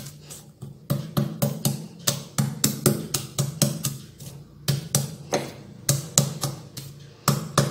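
Stone pestle pounding garlic cloves on a flat stone mortar (cobek and ulekan), crushing them into paste. The sound is a steady run of sharp stone-on-stone knocks, about three a second.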